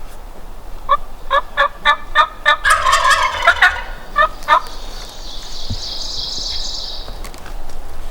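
Wild turkeys calling: a quick series of yelps, with a tom gobbling into them about two and a half seconds in. A higher, raspy buzzing call follows for about two seconds.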